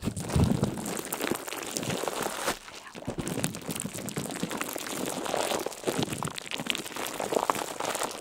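Continuous crinkling and crunching made of many small dense crackles, with a low thump about half a second in.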